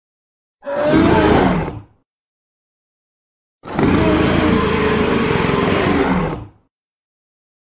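Two giant-gorilla roar sound effects separated by dead silence: a short roar about half a second in, then a longer one of about three seconds.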